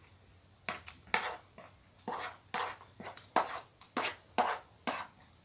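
A spoon scraping across a plate, gathering up the last noodles, in about ten short scrapes over four seconds.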